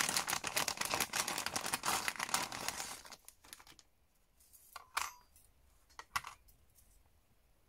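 Clear plastic sleeve crinkling as thin metal cutting dies are pulled out of it, for about three seconds; then near quiet with a few light metallic clinks of the dies knocking together.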